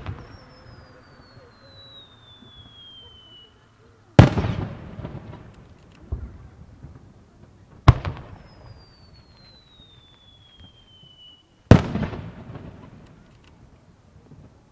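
Two aerial fireworks shells fired one after the other: each launches with a sharp bang, climbs with a whistle that falls steadily in pitch for about three seconds, then bursts with a loud bang whose rumble dies away over a couple of seconds. The bursts are the loudest sounds.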